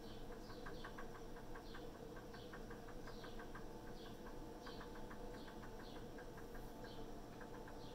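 Cat licking water off its paw: a quick run of small wet clicks from the tongue. Faint high falling chirps repeat through it, over a steady low hum.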